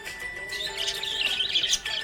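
Budgerigars chirping and warbling in quick, continuous chatter, over background music with long held notes.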